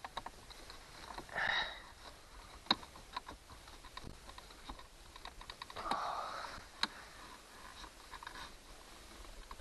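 Scattered small plastic clicks and two short scrapes as a screwdriver pries at a dashboard clock's plastic housing to work it loose, with the sharpest click a little under three seconds in.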